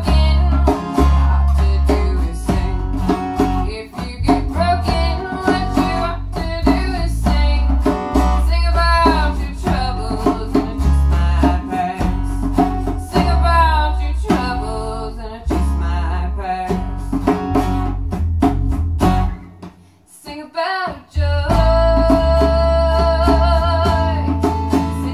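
A small acoustic band plays: strummed acoustic guitar, djembe hand-drum strokes and bass guitar notes, with a gliding melody line on top. The band drops out briefly about twenty seconds in, then comes back in.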